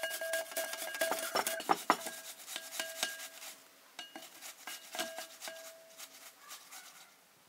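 Peeled quince rubbed back and forth on a handheld metal grater over a glass bowl: quick rasping strokes with a ringing note under them. The strokes break off briefly about three and a half seconds in, resume, and die away near the end.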